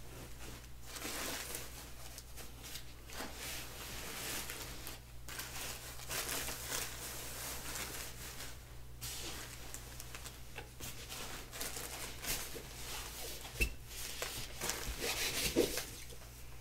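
Cloth rustling and rubbing as a plaid school-uniform skirt is handled and pulled into place, in uneven bursts, with two sharp clicks near the end.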